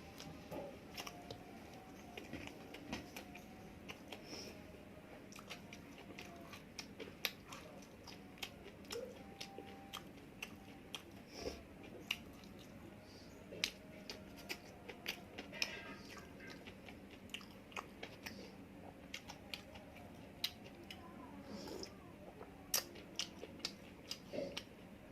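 A person chewing and biting food close to the microphone: many short, crisp clicks and crunches of eating.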